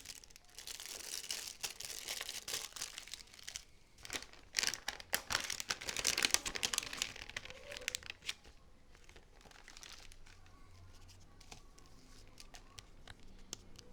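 Packaging being crinkled and torn open by hand, a dense run of crackling that stops about eight seconds in.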